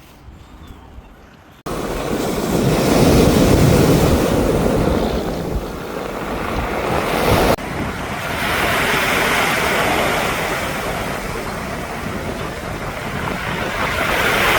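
Sea waves washing onto the shore, swelling and ebbing, with wind rumbling on the microphone. The sound starts abruptly about one and a half seconds in and breaks off sharply about halfway through before carrying on.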